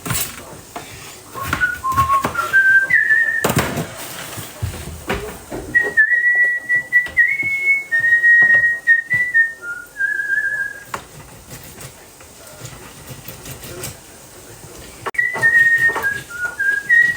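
A person whistling a tune, one clear note at a time stepping up and down, in three short phrases. A few knocks and a louder clatter about three and a half seconds in.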